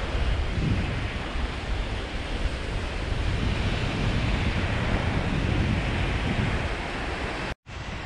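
Small waves breaking and washing up a sandy beach, a steady surf, with wind buffeting the microphone in a low rumble. The sound drops out for a moment near the end.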